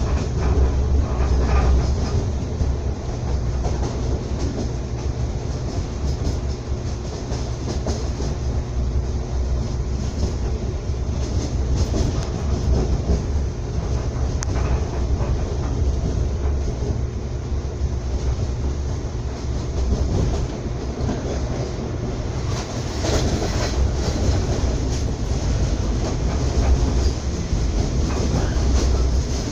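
Train running at speed, heard from inside the carriage: a steady low rumble of wheels on rail with a few sharp clicks now and then.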